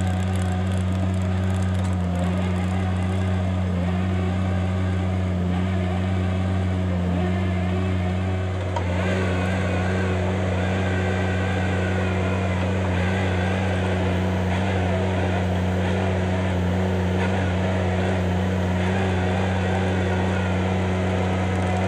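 Gehl mini loader's engine running steadily under load, driving a Bradco 615 chain trencher attachment that is cutting a trench through soil. The sound dips briefly about eight and a half seconds in and then carries more gritty noise from the chain and earth.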